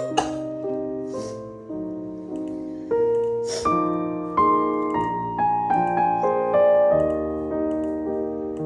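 Piano music, a new note or chord struck about every second and fading away. Three short hissy bursts of noise sit over it: one just after the start, one about a second in, and one about three and a half seconds in.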